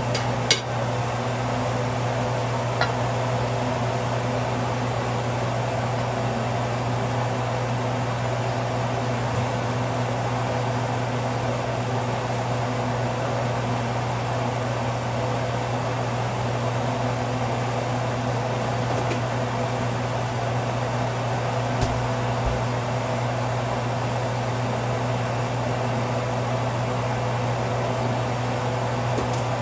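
Steady mechanical hum of a running fan, with a sharp clink about half a second in and a fainter one near three seconds.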